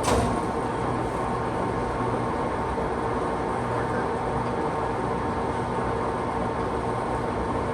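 National hollow-spindle lathe running steadily in a new speed range, its spindle gearing giving an even hum with a steady whine; a sharp click sounds right at the start.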